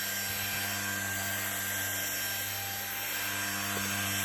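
Deerma CM818 handheld dust mite vacuum cleaner running steadily: a constant electric motor hum with an even rush of air.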